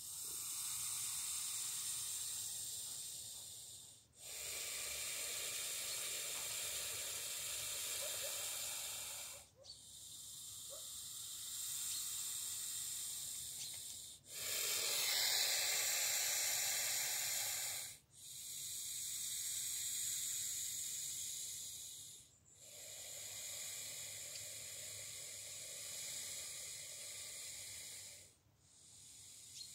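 A snake hissing defensively: a long, steady hiss lasting four to five seconds, then a brief pause for breath, repeated about six times. The loudest hiss comes around the middle.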